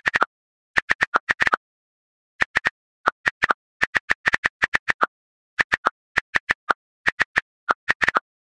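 iPhone on-screen keyboard key clicks, typed in quick runs of several taps with short pauses between words. Some clicks are slightly lower in pitch than the rest.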